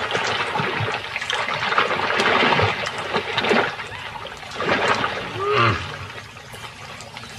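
Muddy water splashing and sloshing as crocodiles thrash over a carcass, loudest in the first few seconds, with two brief pitched calls a little past halfway.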